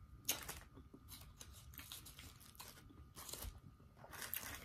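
Close-up chewing of crunchy fried food: a run of short, crisp crunches every half second or so.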